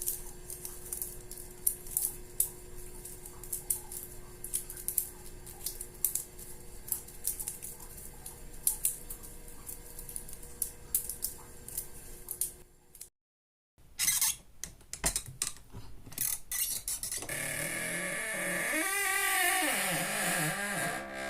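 Rapid, irregular sharp clicks and ticks, like a small mechanism or tapping, over two faint steady hums. After a brief dead-silent cut and a few more clicks, a louder sustained rushing sound starts, its pitch rising and then falling once near the end.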